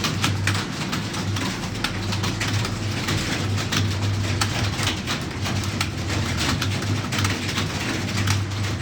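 Computer keyboard typing: rapid, irregular key clicks, several a second, over a steady low hum.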